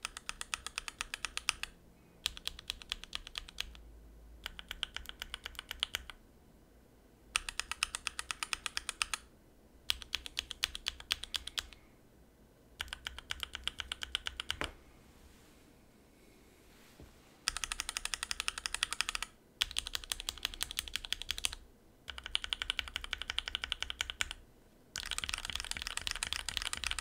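Zeal Tealios V2 linear mechanical keyboard switches being typed on fast, in about ten short bursts of clacking keystrokes with brief pauses between. The bursts near the end are the loudest. This is a side-by-side sound test of the switches stock, lubed with Krytox 205g0, and lubed and filmed.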